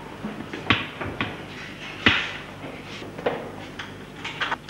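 Several sharp knocks and clunks at uneven intervals, the loudest about two seconds in, with a quick run of clicks near the end, over a steady low hum.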